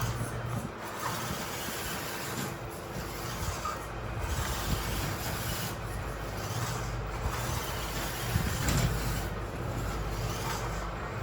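Radio-controlled construction vehicles running, with a steady low mechanical hum and whir throughout and small rises and dips in level.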